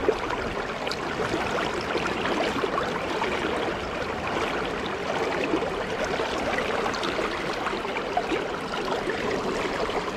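Flowing water running steadily.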